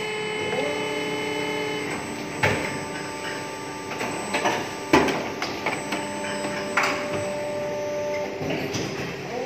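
Hydraulic plastic injection moulding machine running through its cycle: a steady whine from its hydraulic system that shifts pitch a couple of times, with a few sharp clunks from the mould and moving parts, the loudest about halfway through.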